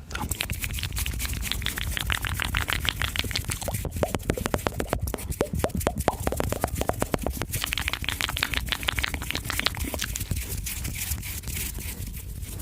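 ASMR mouth sounds close to the microphone: rapid, dense wet clicks and smacks.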